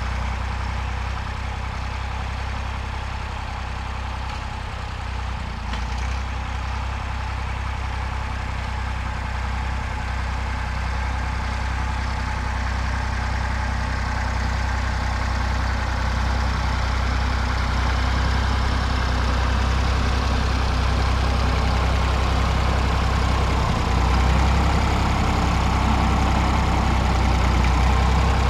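Fordson Dexta tractor's three-cylinder diesel engine running steadily, getting louder as the tractor drives up close near the end.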